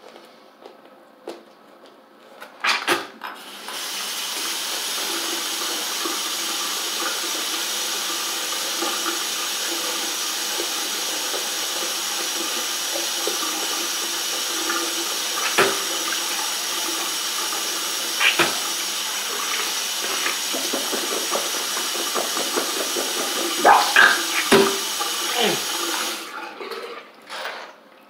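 Water running steadily from a tap into a sink, starting a few seconds in and shutting off near the end, with a few sharp knocks and clatters, several of them close together shortly before it stops.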